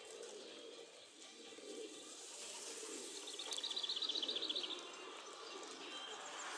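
Outdoor birdsong: a small songbird gives a rapid trill of high notes, lasting about a second and a half, a little over three seconds in. Under it, pigeons coo low and soft at the loft.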